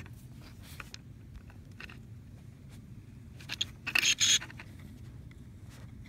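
Clear plastic blister packaging handled by hand: light scattered clicks, then a short burst of crinkling and scraping plastic about four seconds in.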